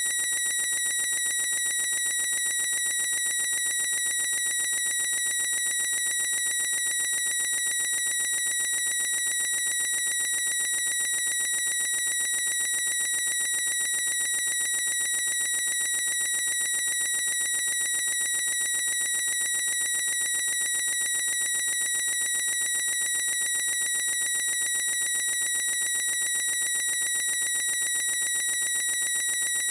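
A boy's high-pitched squeak, drawn out by editing into one unbroken tone whose pitch and loudness never change.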